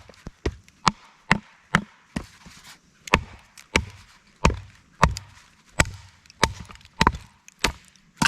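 Becker BK2 fixed-blade knife being batoned into a knotty hardwood log: a wooden baton knocks on the blade's spine about twice a second, with a short pause about two seconds in, as the knife works around a piece too wide for the blade.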